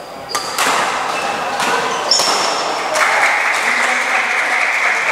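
Badminton rally in an echoing hall: a handful of sharp racket hits on the shuttlecock and brief squeaks of shoes on the court floor. From about three seconds in, a steady hubbub of voices rises underneath.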